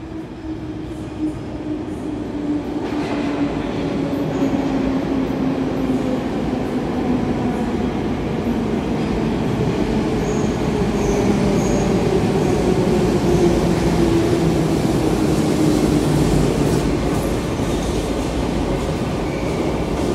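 The Sinergiya-1 diagnostic metro train pulling into the station, its rumble growing louder as it approaches. A humming tone falls slowly in pitch as the train slows, with some wheel squeal.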